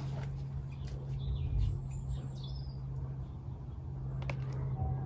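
Faint bird chirps over a steady low hum, with a few light clicks.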